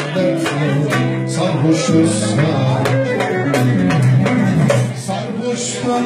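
Band music with a steady drum beat under a shifting melody line and plucked strings, with no clear words.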